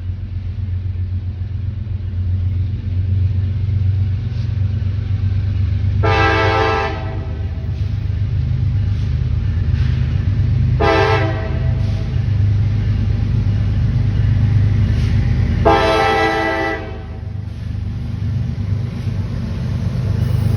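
Locomotive air horn sounding three blasts of about a second each, the last a little longer, over the steady low rumble of a passing train.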